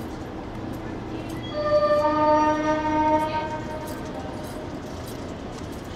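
A train horn sounds one pitched blast of about two seconds, starting about one and a half seconds in, over a steady background rumble.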